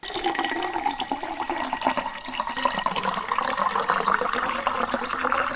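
Water running from a kitchen tap into a pot, a steady rush whose pitch rises slowly as the pot fills.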